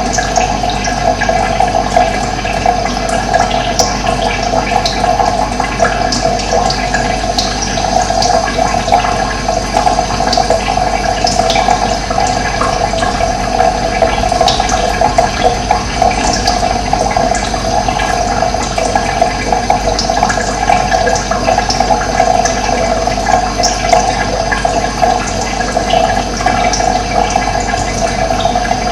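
Running water: a steady, unbroken rush of flowing water, with short high bird chirps scattered through it.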